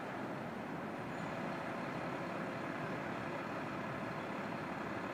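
Steady road traffic noise from cars driving past on a city street.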